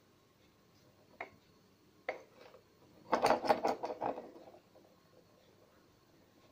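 A broken ceramic shard knocked and slid on a hard tabletop: two single clicks, then a quick rattling clatter of clinks lasting about a second, around three seconds in.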